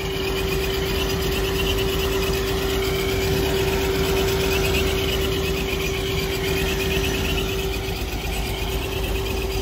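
C7 Corvette's ProCharger-supercharged V8 idling steadily, heard up close in the engine bay, with a steady whine over the low rumble.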